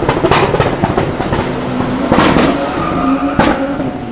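Tuned Nissan Skyline's engine pulling away with sharp exhaust bangs cracking out over it, a few near the start, a loud one about two seconds in and another a little after three seconds; the sound fades as the car moves off.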